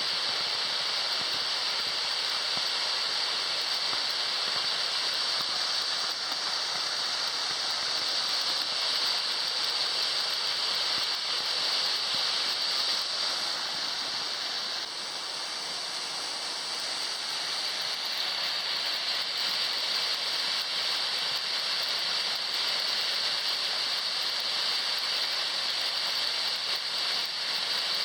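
Steady rush of water from a waterfall and its stream, an even hiss with no pauses.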